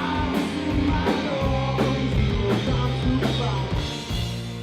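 Rock music played by a band on drum kit, guitar and bass, with a steady drum beat, fading down near the end.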